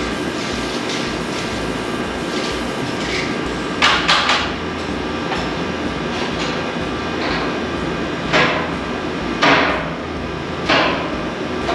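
Sharp knocks on steel pallet racking being assembled: three quick blows about four seconds in, then three single blows about a second apart near the end, over a steady background hum.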